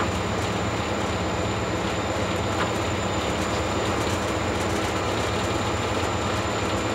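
Diesel locomotive running through a rail tunnel, heard from inside the cab: a steady low engine drone under continuous wheel-and-rail noise, with no change in speed or level.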